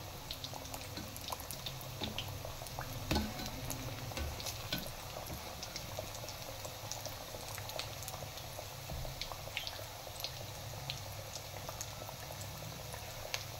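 Samosas deep-frying in hot ghee on a low flame: a steady bubbling sizzle with many small pops and crackles, and one light knock about three seconds in.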